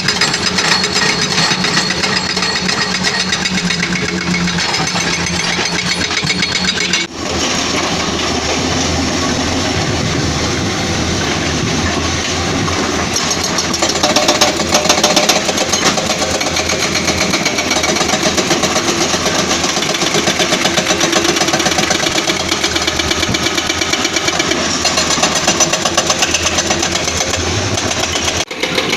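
Caterpillar 320D excavator's diesel engine running continuously at a steady pace, with brief dropouts about seven seconds in and again near the end.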